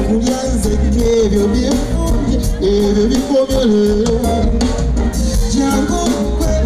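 A man singing live into a handheld microphone over a band with drums and a steady beat; his voice moves between long held notes.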